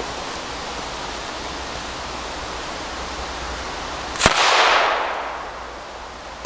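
Over a steady rushing hiss, a Black Cat M-60 firecracker goes off with one sharp bang about four seconds in, its noise fading away over a second and a half.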